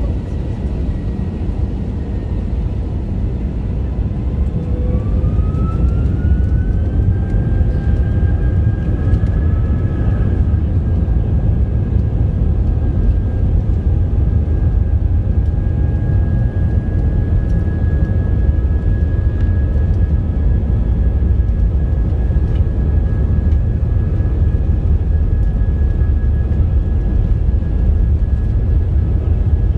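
Airbus A320-232's IAE V2500 turbofan engines heard from inside the cabin, spooling up between about four and seven seconds in with a whine that rises in pitch. The whine then holds steady over a loud, steady rumble as the engines run at takeoff thrust.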